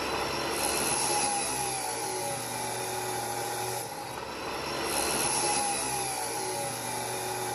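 Abrasive chop saw running, its cut-off wheel grinding through 1-inch mild steel strapping: a steady whine over a harsh grinding noise, the level dipping briefly about halfway through and building again as the wheel bites back in.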